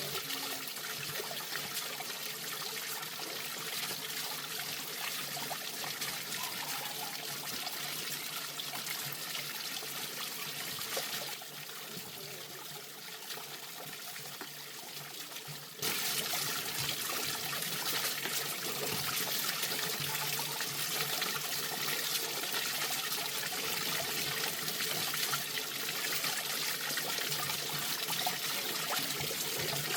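Running water trickling and splashing steadily; it turns quieter for about four seconds near the middle, then comes back at full level all at once.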